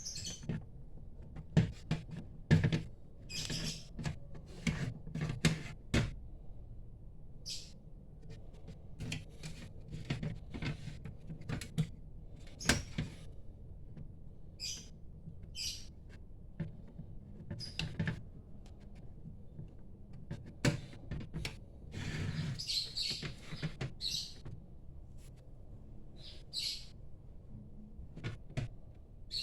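Irregular clicks, taps and short scrapes of hands handling a hard disk, screws and an NVR's casing and connectors during installation, with many brief high-pitched squeaks among them.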